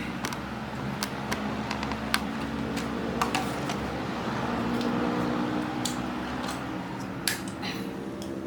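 Scattered light clicks and taps from handling a small plastic CCTV camera and its charger cable, over a steady low hum.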